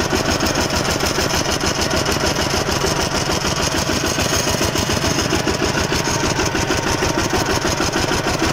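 Single-cylinder diesel engine of a Cambodian kou yun two-wheel tractor running steadily, with a fast, even chugging beat.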